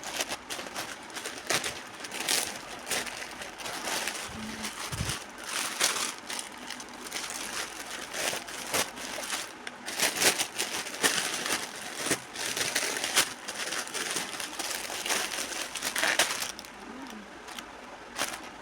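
Plastic parcel packaging being handled and crinkled, in irregular rustles and crackles that ease off near the end.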